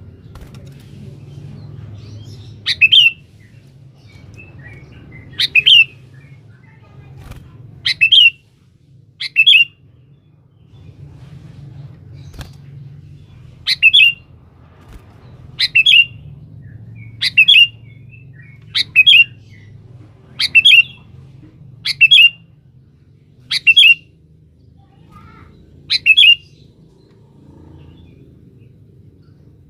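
Sooty-headed bulbul (kutilang) giving short, loud chirping calls, about a dozen, spaced a second or two apart with a pause of a few seconds near the middle, over a faint low hum.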